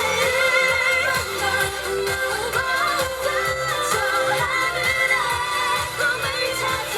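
K-pop girl group singing a pop song, with female vocals over a steady drum beat.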